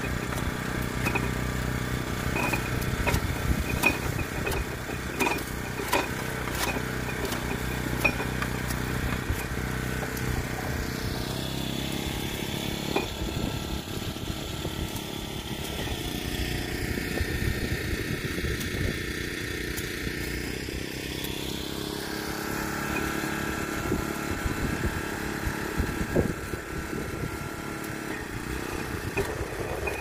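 Small motor-driven sugarcane-processing machine running steadily, with irregular knocks and rattles as cane stalks are pushed down through it.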